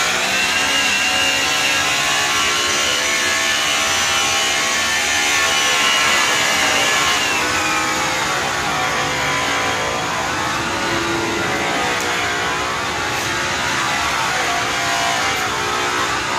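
Power tool motor running steadily, its pitch wavering and dipping about halfway through.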